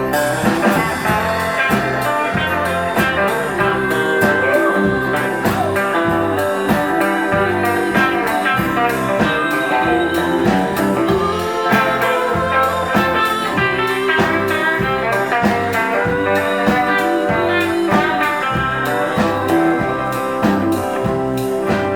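Band playing an instrumental break of a blues-tinged song, with guitar lines over a steady bass and drum beat.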